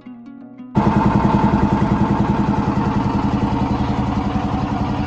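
Soft plucked-string music cuts off about a second in, and a motorboat engine takes over, running loud and steady with a fast, even throb.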